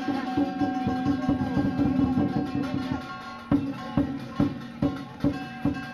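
Chinese lion dance percussion: a large drum struck together with ringing cymbals and gong. It plays a dense run of strokes for about three seconds, then settles into a steady beat of about two to three strokes a second.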